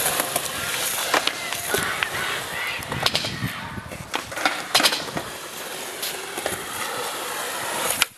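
Skateboard wheels rolling over concrete, broken by several sharp clacks of the board popping and landing. Near the end the board slides along a flat metal rail.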